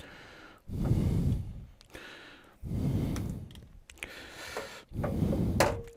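A person breathing out heavily three times close to the microphone, each long breath lasting about a second, roughly two seconds apart.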